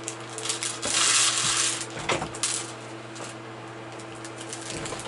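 Loose LEGO pieces clattering as they are tipped out of their plastic bags, busiest in the first two and a half seconds, then dying down.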